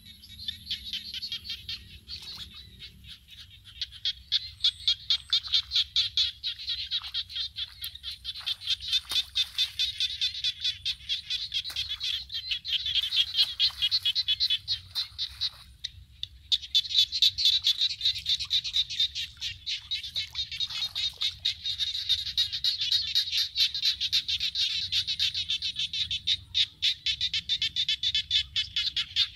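A dense chorus of frogs calling, a fast rhythmic pulsing of fairly high-pitched calls that barely lets up, with a brief lull about halfway through.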